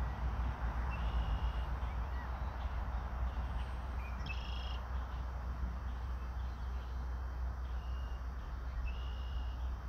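Outdoor ambience with a steady, fluctuating low rumble of wind on the microphone and a hiss. Over it come about four short high-pitched chirps spread through.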